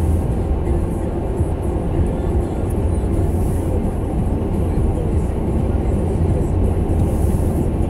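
Steady low rumble of tyre and engine noise inside a Toyota Corolla's cabin while it drives at road speed.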